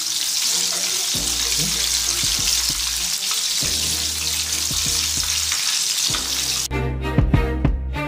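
Flour-coated chicken pieces deep-frying in hot oil in a wok: a steady sizzle. Near the end the sizzle cuts off and music takes over.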